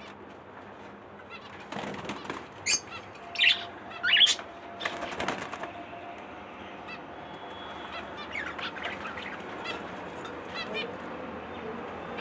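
Small caged pet parrots (budgerigars, a cockatiel and lovebirds) chirping. Three sharp high calls come between about two and a half and four and a half seconds in, with softer calls and some wing fluttering around them.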